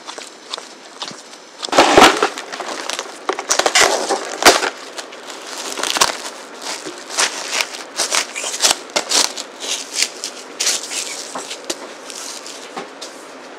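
Stretch-tite plastic food wrap crackling and crinkling as it is pulled off the roll and stretched over a stainless steel mixing bowl of dough, in a long run of irregular crackles with the loudest burst about two seconds in.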